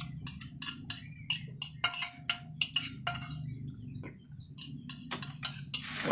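Metal spoon clinking and scraping against a ceramic bowl while eating soup: quick, irregular clinks, some ringing briefly, with a short slurp near the end.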